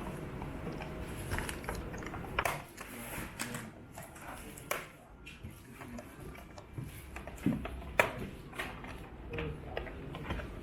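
Irregular small clicks and scrapes of hand and tool work on an all-in-one PC's plastic case, with one sharper click about eight seconds in.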